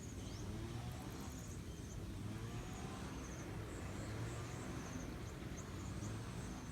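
Steady low rushing outdoor noise, with short faint high chirps of insects repeating about once a second.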